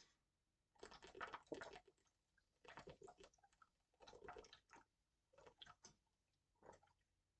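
Faint clicks and crackles in about five short clusters, roughly a second apart.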